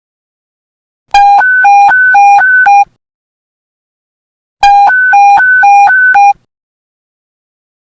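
Police radio panic-button alert tone: loud beeps that alternate quickly between a low and a higher pitch, about seven beeps in a run. It sounds twice, a few seconds apart.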